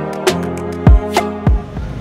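Background music with a drum beat and sustained chords, stopping shortly before the end.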